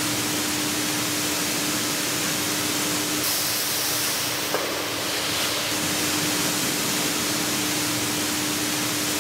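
Coffee roasting plant machinery running: a steady rush of air with a constant hum, and a small tick about four and a half seconds in.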